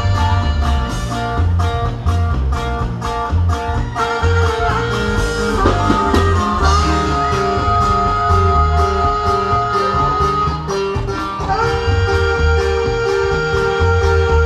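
Live norteño band playing an instrumental passage: saxophone holding long notes over electric bass and a steady drum beat.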